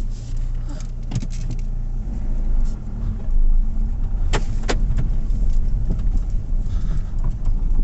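Peugeot driving over a bumpy surface, with steady road and cabin rumble and clinking and clunking from the front suspension. Two sharp knocks come close together about four and a half seconds in. The mechanic puts the knocks down to worn anti-roll bar drop links.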